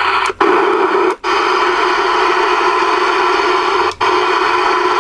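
Loud, steady static hiss from a CRE 8900 ten-meter radio's speaker, with the receiver open on an empty channel. The hiss cuts out for an instant three times.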